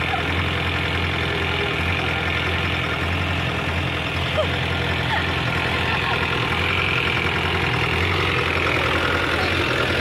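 Old flat-fender jeep's engine running steadily at low revs, a constant low drone.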